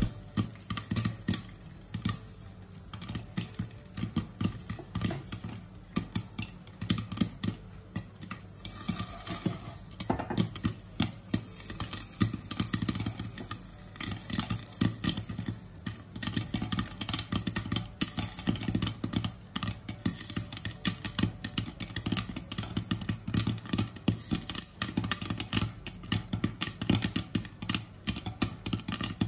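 Corn kernels popping in hot oil in a pan covered with a glass lid: a dense, irregular stream of sharp pops.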